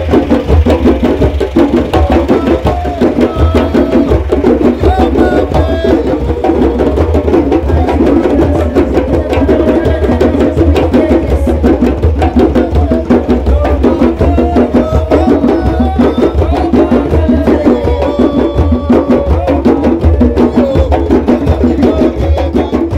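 A group of djembe hand drums played together in a dense, continuous rhythm of hand strokes.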